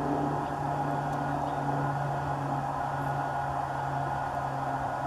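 Steady low mechanical hum over an even background hiss.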